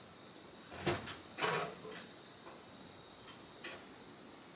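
A few sharp knocks and clicks from hand tools and metal parts being handled, with a short scraping rustle about a second and a half in and lighter clicks near the end.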